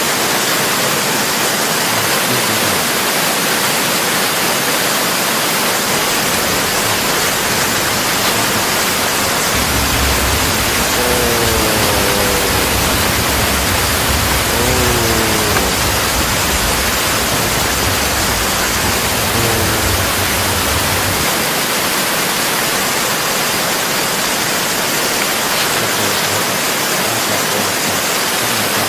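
Strong wind rushing steadily and loudly, with a deeper rumble between about ten and twenty seconds in and three short falling-pitched howls in the middle.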